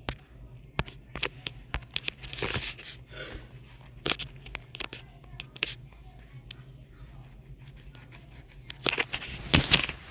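Irregular sharp clicks and rustling, with a louder cluster of noisy bursts near the end.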